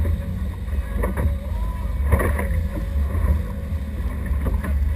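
Small fishing boat under way on twin outboard motors: a steady low rumble of engines and wind buffeting the microphone, with water rushing past the hull. A brief knock about two seconds in.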